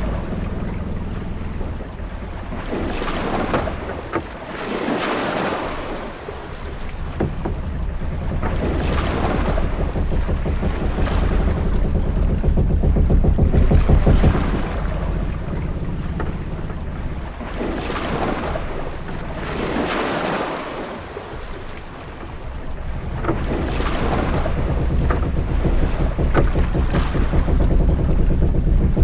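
Sailing-ship-at-sea ambience: waves washing in swells that rise and fall every few seconds over a steady low rumble of wind.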